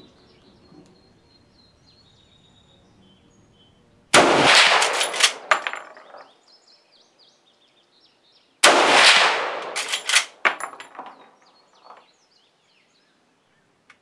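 Two shots from a Marlin 336 lever-action rifle in .30-30 Winchester, about four and a half seconds apart, each echoing back across the range for a second or two. Sharper metallic clicks follow each shot as the lever is worked.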